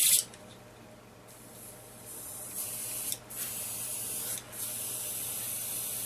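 Iwata Neo airbrush, fitted with a 0.5 needle and nozzle, hissing as it sprays: a short burst at the start, then after about a second a longer spray that breaks off briefly twice as the trigger is worked. The hiss shows that the airbrush sprays with the 0.5 parts fitted.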